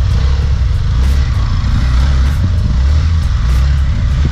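Hero Xpulse 200 single-cylinder engine running steadily on a rough dirt trail, under a heavy, steady low rumble of wind and jolts on the camera's microphone.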